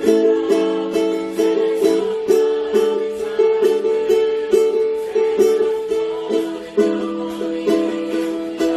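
Solo ukulele playing a tune, a melody of plucked notes over strummed chords, struck about twice a second.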